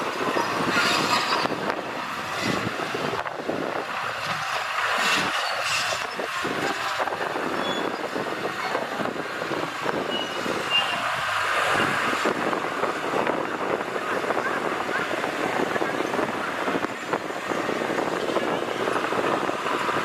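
Heavy earthmoving machinery working, a steady rough mechanical clatter and grinding of engine, tracks and stone soil.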